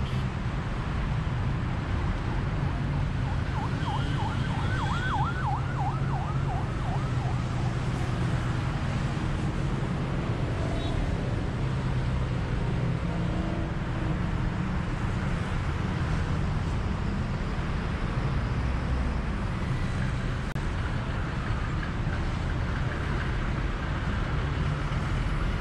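Steady road and engine noise from a car driving at speed on a multi-lane expressway. About four seconds in, a siren yelps for about three seconds in quick up-and-down sweeps, roughly four a second.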